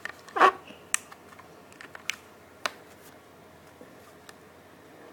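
Hands handling a toy car's blister-card packaging: sharp plastic and card clicks, with one longer scraping rustle about half a second in, then a few fainter ticks.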